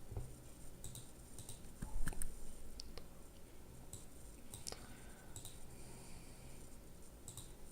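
Scattered light clicks, singly and in small groups a second or so apart, over quiet room tone.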